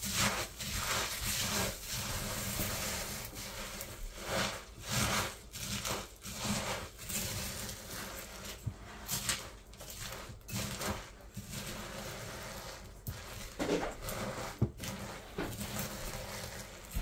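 Rice Krispies cereal being stirred and mixed into sticky melted marshmallow in a glass bowl, first with a wooden spoon and then by hand: a run of irregular scraping and rustling strokes.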